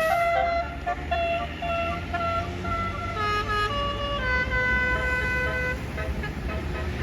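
A bus's basuri telolet horn playing a tune of held notes that step up and down in pitch, over the low rumble of the bus engine.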